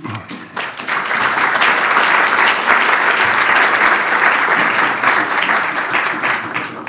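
Audience applauding. The clapping swells about half a second in, stays steady, and dies away near the end.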